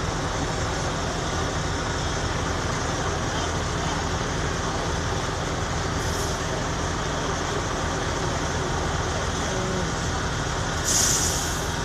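Steady low rumble and hiss of fire trucks' diesel engines and pumps running. A brief, louder hiss comes near the end.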